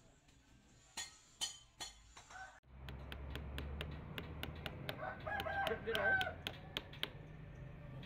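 Three sharp knocks about a second in, then a low steady hum with a run of light ticks, and a rooster crowing once, about a second long, near two-thirds of the way through.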